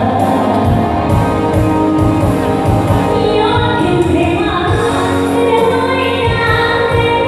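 Live band music with a lead vocal singing over amplified instruments and a steady drum beat.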